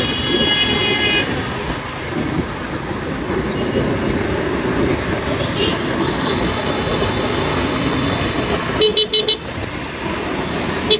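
Road traffic with vehicle horns: a long horn blast that cuts off about a second in, steady traffic rumble, then a quick run of about four short honks near the end.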